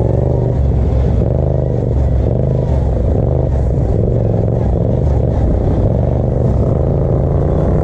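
Racing ride-on lawn mower engine running hard under load, heard from on board the mower. The engine pitch wavers and dips a couple of times as the mower works around the track, then climbs again near the end.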